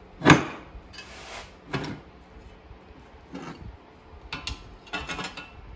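Metal knocks and clinks from a front disc-brake spindle and backing-plate assembly being handled on a workbench with a cordless impact wrench, the loudest knock just after the start and a quick run of lighter clinks near the end.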